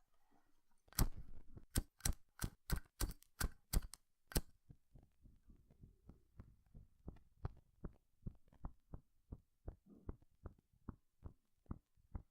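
A Zippo lighter clicking over and over. About a dozen loud, sharp metal clicks come in the first few seconds, then a steady run of softer clicks, two or three a second.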